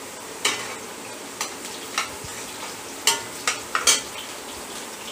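Chopped vegetables frying with a steady sizzle in a stainless steel kadhai. A metal spatula stirring them scrapes and clinks against the pan several times, loudest in a quick cluster about three seconds in.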